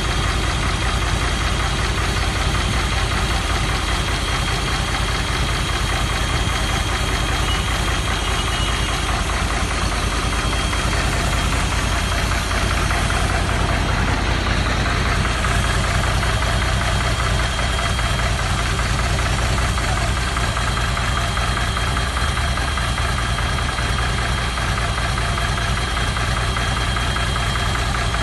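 Gas-fuelled 62.5 kVA generator set engine running steadily at constant speed, with a thin steady high whine over it.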